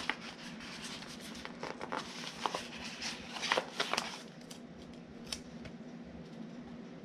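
Paper sticker sheet rustling and crinkling, with small clicks, as a letter sticker is peeled off it; after about four seconds the sound drops to a few soft taps as the sticker is pressed onto the page.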